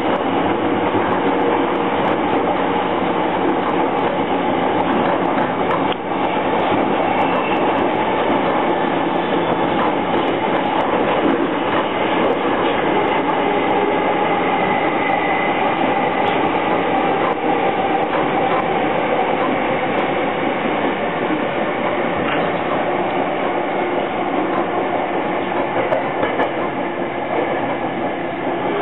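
Interior running noise of a JR East E231 series Yamanote Line commuter train between stations: a steady rumble of wheels on rail with faint clicks over rail joints and a faint steady whine.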